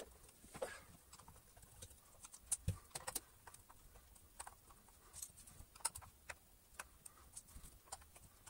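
Scattered small plastic clicks and taps as a screwdriver prises the sealing ring off the bottom of a Dyson V10 cyclone assembly, irregular and faint, bunched in two clusters.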